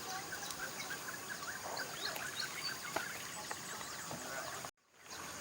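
Birds chirping in forest, many short overlapping calls over a steady high hiss. The sound cuts out for a moment near the end.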